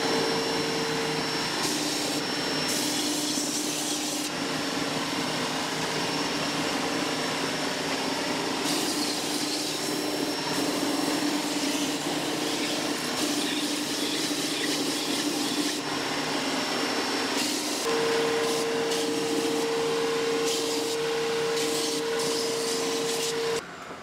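Delta belt-and-disc sander running steadily together with the shop vac hooked to it for dust collection, while thin wooden whirligig blades are pressed against the belt to sand them to an even thickness. The noise cuts off near the end.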